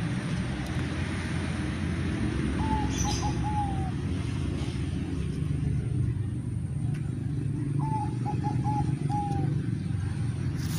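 A dove cooing twice, each a short phrase of four or five notes ending in a longer falling note, the two phrases about five seconds apart. Under it runs a steady low rumble.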